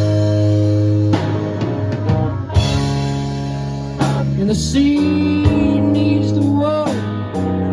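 Band music in a slow blues style: guitar and bass holding sustained chords over a steady bass line, with a few sliding, bending notes about five seconds in and again near the end.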